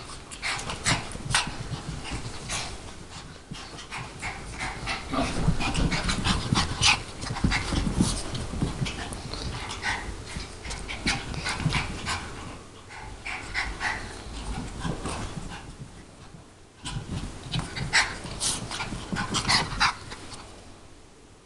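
A Chihuahua puppy and a Maltese play-fighting, with dog panting and small dog noises over scuffling and clicks. The noise comes in busy spells with a brief lull about three quarters of the way through.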